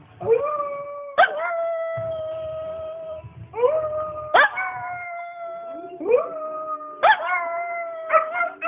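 Shih Tzu howling in a run of about seven howls, each breaking in with a quick upward yelp and then held on a steady note, with a few short yips near the end.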